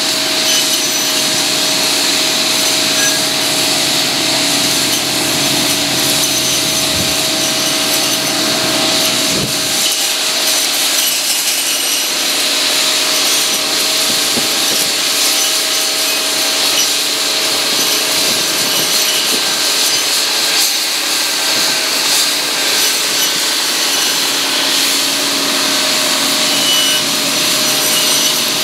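Tractor-mounted McConnel circular-saw hedge and branch cutter, its blades spinning steadily and sawing through branches, with the tractor's engine running under it.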